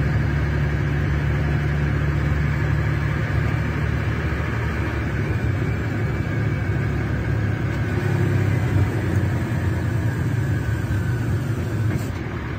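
Scania DC12 06 twelve-litre inline-six diesel engine (380 hp, rear-mounted) of a Scania K380 coach running steadily, with small shifts in its pitch. A brief click near the end, after which the sound drops a little.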